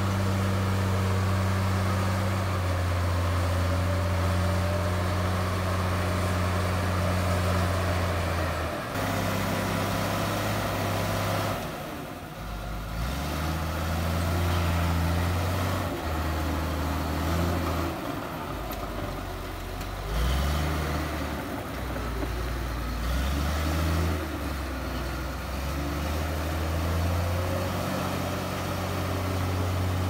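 Komatsu D53P bulldozer's diesel engine running hard. The engine holds a steady note for the first several seconds, then its pitch and loudness shift up and down repeatedly as the load changes.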